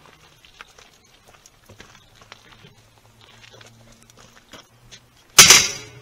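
Footsteps crunching on gravel, a light scatter of small clicks, then one sudden loud knock about five seconds in that dies away within half a second.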